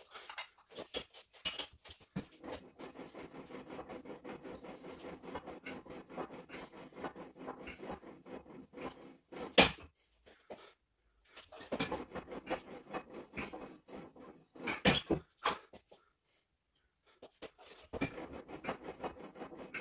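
Gym equipment being handled: three stretches of fast rattling, each of a few seconds and each ending in sharp metal clinks, the loudest about halfway through.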